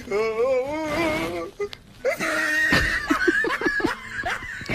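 A person laughing hard: a long laugh with a wavering pitch, then a run of short quick laughs.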